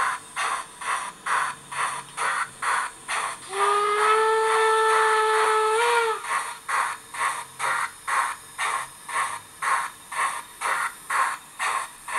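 Model class 39 steam locomotive's sound: steady exhaust chuffing at about three beats a second. About three and a half seconds in, a single whistle blast starts over the chuffing; it lasts about two and a half seconds and bends up in pitch just before it cuts off.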